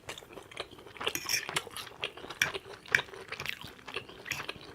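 Open-mouth chewing and lip smacking: a rapid, irregular run of wet clicks and smacks.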